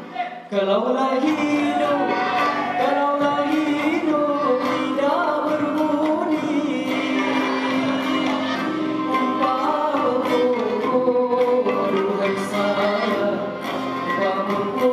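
Live Malay zapin ensemble music: a singer's ornamented, gliding melody over string instruments and hand-drum strokes, picking up again after a brief drop in level at the start.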